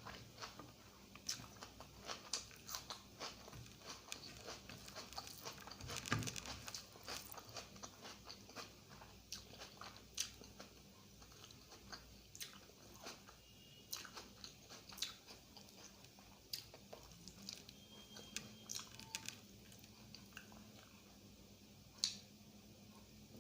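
Close-miked chewing of egg curry and rice: wet, soft mouth clicks and smacks. The busiest moment is about six seconds in, and there is one sharp click near the end.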